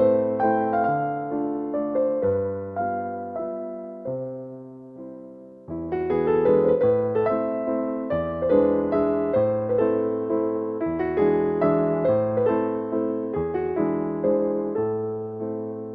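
Background music: a gentle piano melody with bass notes, each note struck and decaying. The music thins out and fades for a moment about five seconds in, then a new phrase starts.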